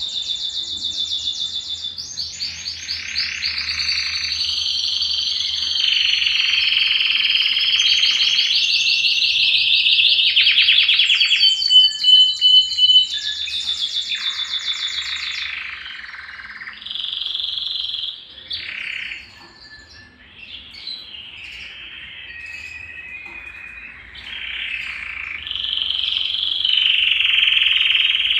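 Belgian canary singing a long, continuous song of fast rolling trills and whistled phrases. It is loudest with rapid pulsed notes about twelve seconds in, and goes softer for a few seconds about two-thirds through before picking up again.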